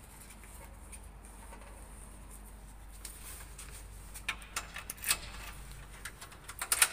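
A run of short, light clicks and knocks, sparse at first and loudest just before the end, as a glass door with a long metal pull handle is opened and passed through.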